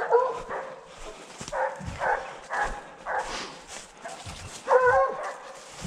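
A pack of scent hounds baying, a string of separate calls in quick succession, loudest near the end: the hounds are giving tongue on a wild boar's scent.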